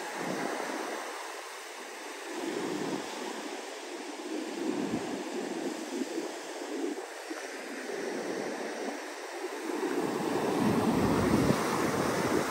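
Ocean surf breaking and washing up a beach in slow swells, with wind rumbling on the microphone; it grows louder about ten seconds in.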